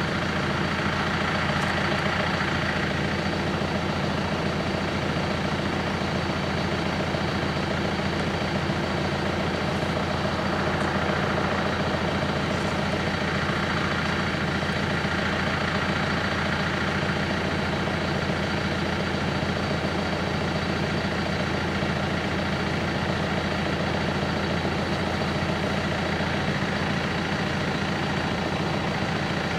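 A level-crossing warning bell ringing without a break while the barriers are down, a sign that the crossing is closed for an approaching train.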